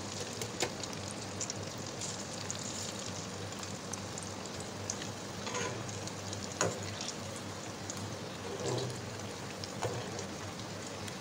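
Rice pakoda (leftover rice and gram-flour fritters) deep-frying in hot oil in a kadai: a steady sizzle with crackles throughout. There are a few sharper clicks, and a spatula moves the fritters around midway through.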